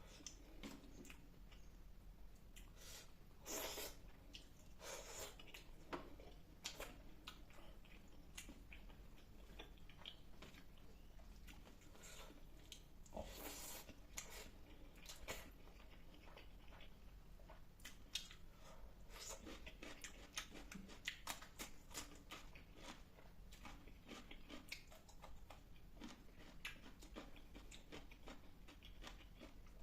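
Faint close-up chewing of fish curry with rice: irregular soft mouth clicks and smacks, a few of them louder.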